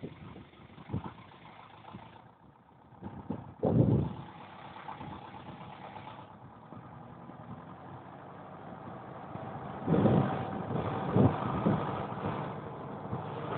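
Zetor Forterra 11441 tractor's diesel engine running steadily while ploughing. It grows louder about ten seconds in, with several short low bursts over it, the strongest about four seconds in.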